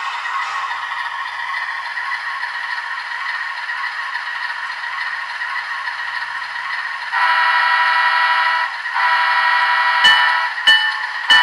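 Sound-decoder audio from an HO-scale Kato Amtrak GE Genesis model locomotive running on the layout, first a steady diesel running sound with mechanical clatter. About seven seconds in, the horn sounds with several notes at once: a blast of about a second and a half, then a second blast after a short break. Near the end the locomotive bell starts ringing, about one strike every two-thirds of a second.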